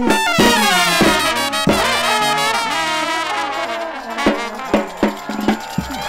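Second-line brass band playing live, with trumpets and trombones on the tune over a sousaphone. After about three seconds the horns thin out and a steady beat of sharp hits, about two or three a second, comes to the front.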